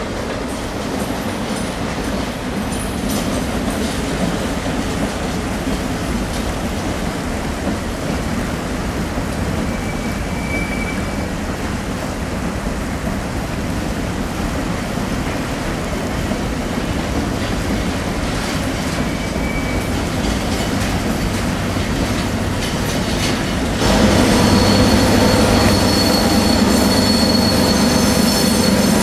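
A slow container freight train rolls past on a steep grade, its wheels and cars rumbling steadily, with two brief high wheel squeals. Near the end the sound jumps louder as the shoving BNSF EMD GP-series diesel locomotives at the rear come by, working under load with a steady whine over a deep engine drone.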